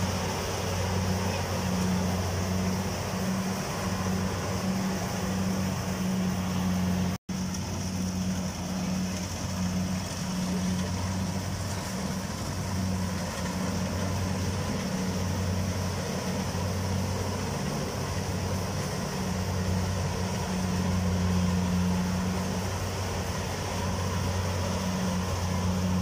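Kubota combine harvester running while cutting rice: a steady low engine drone with a higher whir over it, broken by a momentary dropout about seven seconds in.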